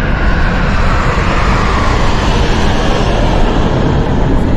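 Jet aircraft flying past overhead: a loud, steady rumble with a pitch that falls slowly over the first couple of seconds.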